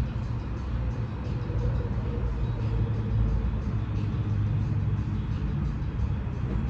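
The 1986 Cutlass's swapped-in 6.0-litre V8 engine running steadily with a low, even sound.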